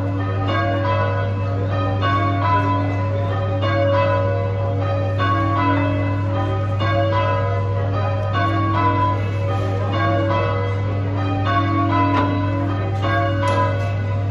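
Ring of three church bells, tenor tuned to B, rung full-circle by hand so that the bells strike one after another in steady rotation. A steady low hum runs underneath.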